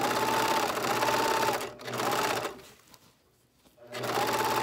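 Electric sewing machine stitching in bursts, its motor whine rising and falling with each run: a run of about a second and a half, a short one, a pause of about a second, then it starts again near the end.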